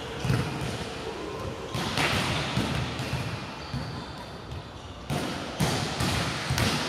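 A ball bouncing on a hard court floor, giving irregular thuds, with sharper smacks about two seconds in and several more in the last two seconds.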